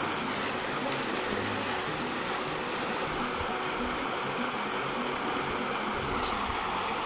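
Steady rushing of stream water flowing over a riffle.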